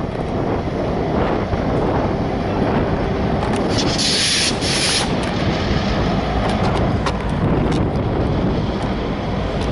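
Diesel locomotives of a freight train running, a steady low rumble, with a brief hiss about four seconds in.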